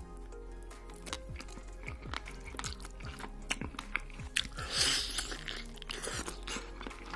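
Close-miked chewing and crunching of food in many sharp, quick bites, with a louder crunch about five seconds in, over background music with a steady beat.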